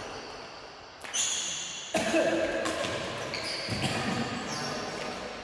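Badminton rally: rackets striking the shuttlecock, with sharp hits about one and two seconds in, and shoes squeaking on the tiled court floor.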